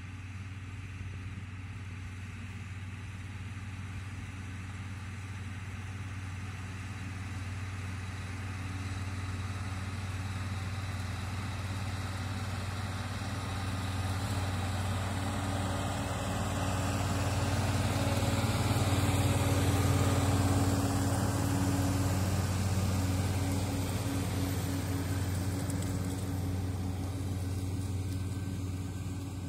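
Large farm tractor's diesel engine running steadily. It grows louder to a peak about two-thirds of the way through, then fades somewhat, as the tractor draws near and moves away again.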